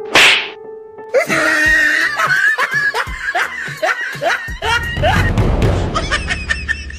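A loud short whoosh-like burst, then high-pitched cackling laughter: short rising 'hee' notes repeated a few times a second over background music, with a low rumble coming in about halfway through.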